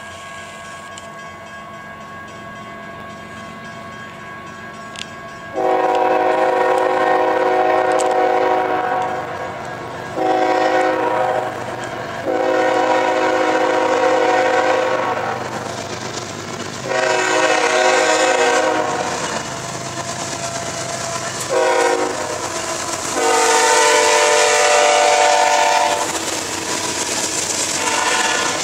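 CSX freight locomotive's multi-chime air horn sounding a series of about seven long and short blasts as the loaded coal train approaches. Near the end the train is passing close by, with the clatter and hiss of wheels on the rails.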